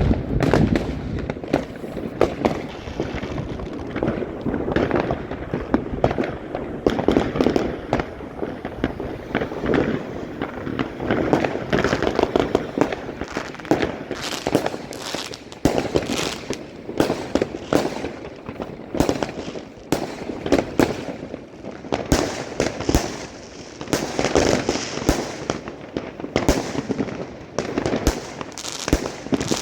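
New Year fireworks going off continuously: dense, overlapping bangs and crackling from many shells bursting one after another.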